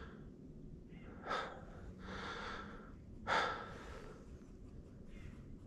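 A man breathing close to the microphone: two sharp, short breaths about two seconds apart, with softer breathing between them.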